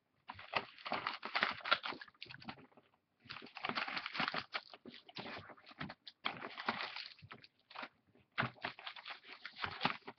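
A folder of card checklist pages being handled: rustling, sliding and rubbing of the cover and pages in irregular bursts with short pauses.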